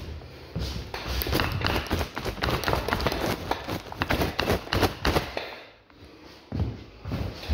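Footsteps in sneakers on a bare wooden floor close by, a quick run of taps and knocks, then a brief lull and a few heavier thuds near the end.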